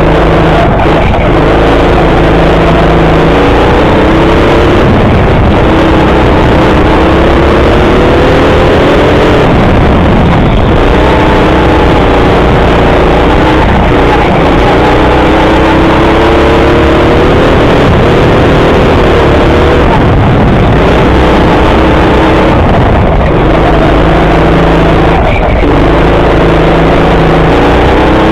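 Go-kart motor heard from the kart itself, loud, its pitch climbing as it accelerates down each straight and dropping back into the corners, several times over.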